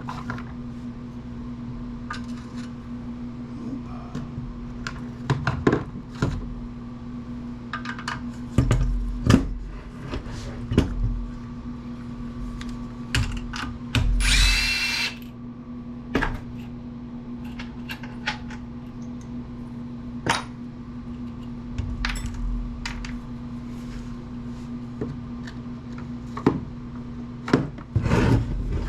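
Metal parts of an amplifier chassis clicking and knocking as it is taken apart, with a handheld power tool whirring in one short burst about halfway through. A steady low hum runs underneath.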